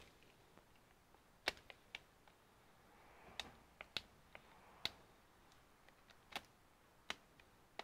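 Scattered small, sharp clicks and taps, about a dozen at uneven intervals, from gloved hands handling the laptop's battery connector and its cable at the motherboard, with a faint rustle of the gloves about three to four seconds in.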